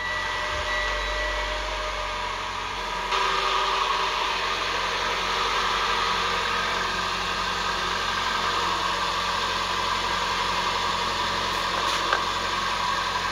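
Car engine idling steadily, coming in suddenly at the start and getting louder about three seconds in.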